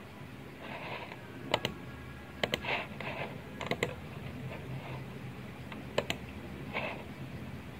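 Computer mouse button clicks: four groups of sharp clicks spaced a second or more apart, several of them in quick pairs, with soft rustling between.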